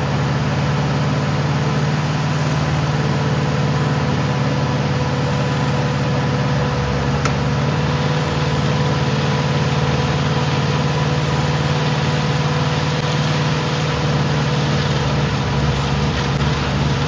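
Diesel engine of a Schwing Stetter SLM600 self-loading concrete mixer running at a steady speed, a constant low hum with a faint steady whine above it.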